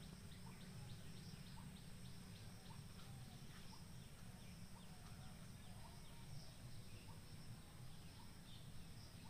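Faint outdoor ambience: small birds calling in scattered short, high chirps over a low steady rumble.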